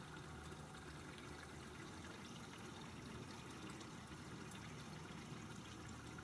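Faint, steady trickle of water running in a small canal.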